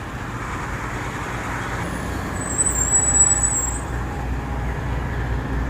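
Steady low rumble of idling truck engines, with a brief high hiss lasting about a second, starting around two and a half seconds in.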